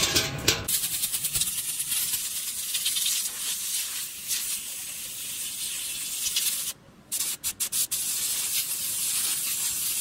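Compressed-air blow gun blasting air through a motorcycle's pleated panel air filter to clean it: a loud, steady hiss that stops briefly about seven seconds in, then comes back as several quick on-off blasts.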